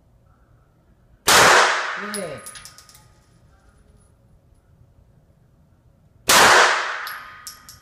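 Two single shots from a 9mm pistol about five seconds apart, each ringing out in the indoor range's reverberation and followed by a few light metallic clinks.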